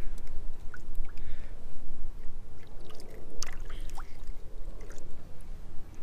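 Wind buffeting the microphone: a steady, low rumbling noise, with a few faint clicks scattered through it.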